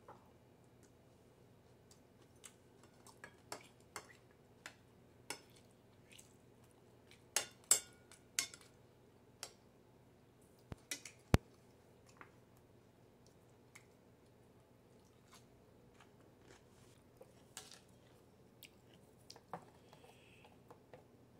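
Irregular sharp clinks and scrapes of a metal spoon and chopsticks against a ceramic plate while eating, with quiet chewing; the loudest clicks come a little before and just past the middle.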